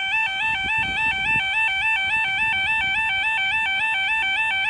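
Level-crossing Yodalarm alarms sounding a continuous two-tone warble that switches rapidly between a higher and a lower pitch, as the crossing's barriers rise.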